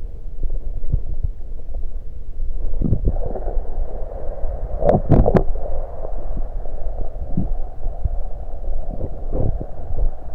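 Stomach gurgling and rumbling after drinking soda, picked up close against the belly, over a steady low throb. A gurgle comes about 3 s in, a fizzy rushing sets in from then on, and a few sharp clicks come about 5 s in.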